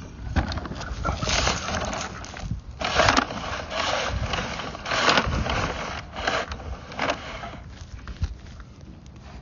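Sewer inspection camera head being pushed through a drain pipe, with irregular scraping, knocking and rushing noises as it rubs and bumps along the pipe walls and fittings. It grows quieter near the end.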